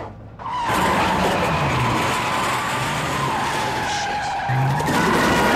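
A chase vehicle's engine racing with tyres skidding, starting abruptly about a second in after a brief lull and holding loud and steady, with a wavering high tone running through it.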